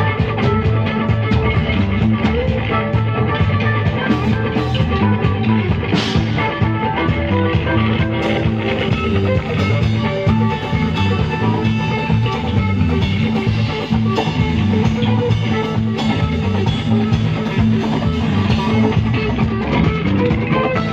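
A rock band playing: electric guitar over bass and a drum kit, steady and loud throughout.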